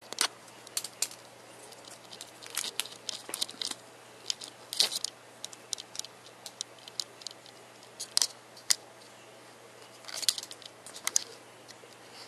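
Irregular light clicks and ticks, some in quick clusters, over a steady low hum.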